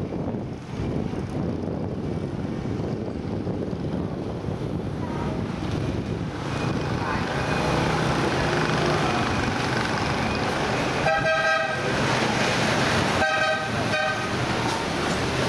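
Steady street traffic noise, with a vehicle horn honking twice, each honk a little under a second long, in the second half.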